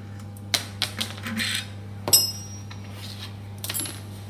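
Light metallic clinks and clicks from steel hub parts and hand tools being handled, a few scattered over the seconds. About two seconds in comes one sharper metal strike that rings briefly. A steady low hum runs underneath.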